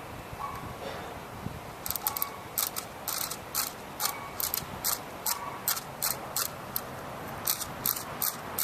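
Small plastic mechanism clicks from an airsoft gun being worked by hand, likely an empty or nearly empty gun. The clicks start about two seconds in and go on in a quick, even series of about three a second.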